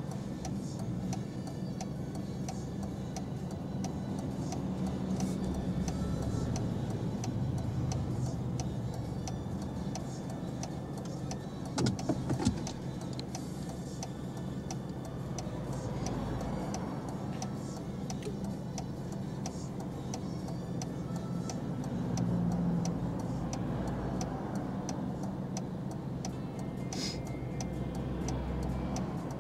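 Car standing still with its engine idling, heard from inside the cabin, its turn-signal indicator ticking steadily; other cars pass in front, and there is a brief loud knocking about twelve seconds in.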